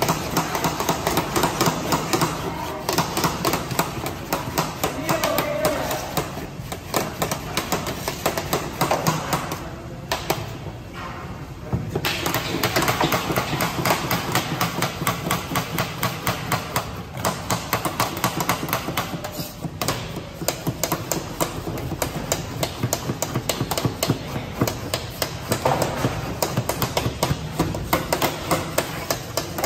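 Rapid, repeated knocking and clattering of kitchen utensils at work, several strikes a second, easing briefly about ten seconds in. Voices murmur in the background.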